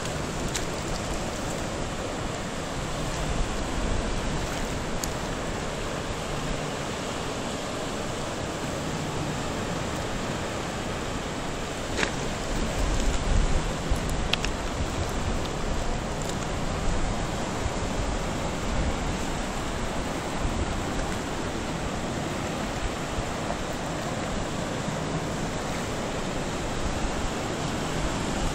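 Steady wash of ocean surf breaking on a rocky shore, with wind rumbling on the microphone and one sharp click near the middle.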